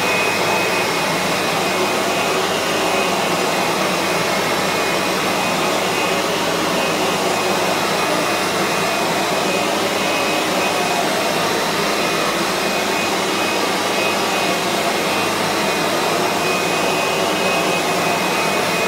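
Kirby G3 upright vacuum running with its buffing brush fitted, buffing dried floor wax on a laminate floor. A steady motor drone with a high whine.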